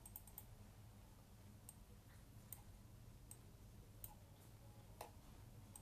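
Faint clicks from a laptop's pointing device as files are selected and dragged: a quick cluster at the start, then single clicks about once a second, over a faint low hum.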